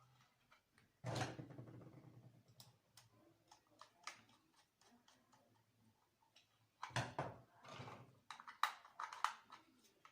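Scattered clicks and knocks of a reassembled plastic circuit breaker being handled, with a louder knock about a second in and quick clusters of clicks near the end.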